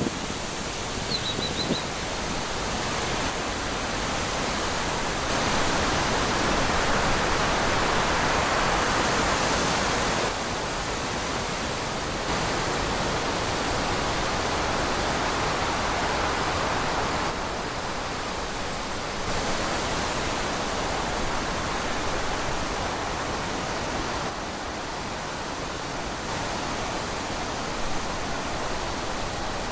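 Wind rushing through trees and leaves, a steady noise that swells and eases every few seconds. A brief high chirp comes about a second in.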